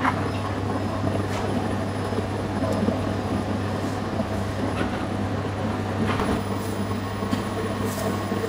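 Bakery dough-kneading machine running steadily: its electric motor hums while the mixing arm churns a batch of shaggy bread dough in a steel bowl.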